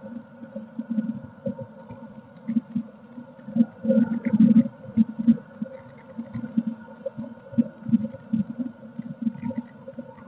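Steady electrical hum from a nest box camera's microphone, with irregular soft low thumps and faint clicks throughout.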